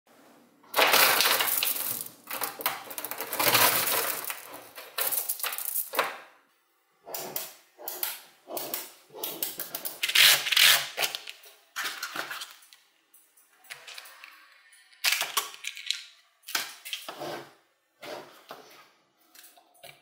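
Small magnetic balls clicking and clattering against one another as they are pulled apart and snapped together by hand. There is a dense run of clicking for the first few seconds, then shorter bursts with gaps between.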